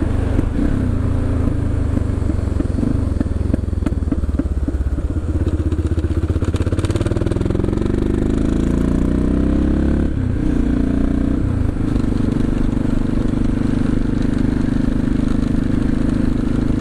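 CCM DS 644's big single-cylinder engine heard from its exhaust while riding, the note rising as it pulls, dipping briefly about ten seconds in, then holding steady at a higher pitch.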